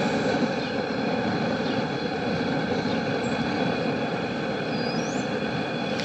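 Propane burner running steadily under a large aluminium pot, heating water for scalding chickens: an even, unbroken rush of noise with a faint steady hum.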